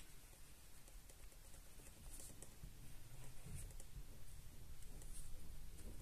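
Graphite pencil scratching faintly over paper, pressed hard while tracing a drawing so that it transfers through to the other side.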